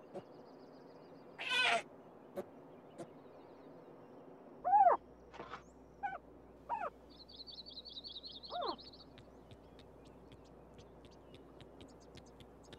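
Several short, arching whining calls from an animal, the loudest about five seconds in, with a falling squeal about a second and a half in. A bird trills high in between, with a fast warbling trill about halfway through.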